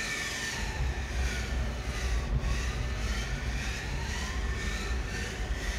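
Tormach 1100MX CNC mill running a program cycle: a steady motor whine over a low hum, with fainter tones that slide down and back up as the axis drives move the table.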